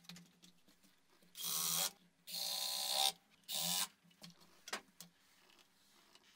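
Wooden pivot joints of a plywood swing arm rubbing and scraping as the arm is swung by hand: three rubbing scrapes, each under a second, the middle one longest, then a couple of light knocks.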